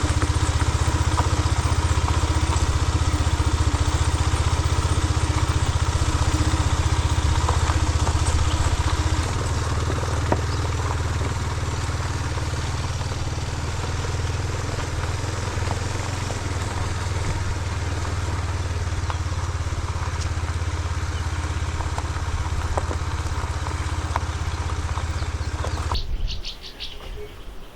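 Benelli TNT25 motorcycle's single-cylinder engine running steadily, a little quieter about a third of the way in, then stopping abruptly near the end, leaving birds chirping.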